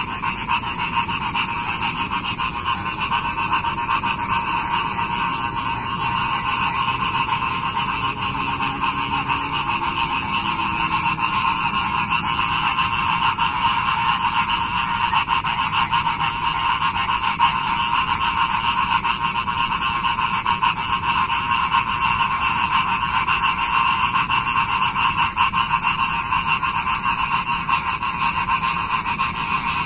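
A dense chorus of many frogs calling at once, a steady rapid pulsing trill without pauses, with a thin high steady whine above it.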